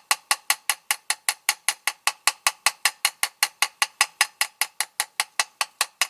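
Small hammer tapping rapidly and evenly on the end of a diecast toy's steel wheel axle, about six sharp metallic taps a second, peening the axle end over to hold the wheel on.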